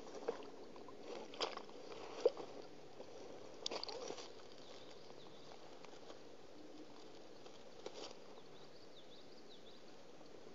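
Loon hauling itself out of the water onto its nest: a few short splashes and rustles of nest sticks and reeds in the first four seconds. Then it goes quiet as the bird settles, with faint high chirps of a small bird near the end.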